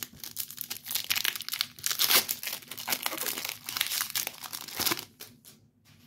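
Foil trading-card pack wrapper crinkling and being torn open by hand, a dense crackle for about five seconds that stops shortly before the end.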